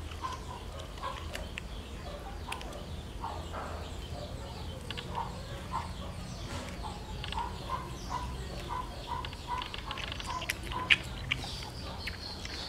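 An animal's short repeated calls, in runs of about two or three a second, with scattered faint clicks.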